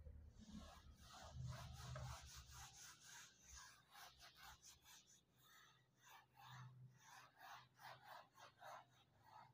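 Whiteboard duster wiping marker ink off a whiteboard in quick, repeated rubbing strokes, faint.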